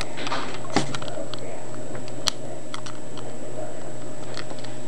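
A few light clicks and handling knocks, with one sharp click about two seconds in, over a steady electrical hum, while a cable is being plugged into an iPod Touch and computer.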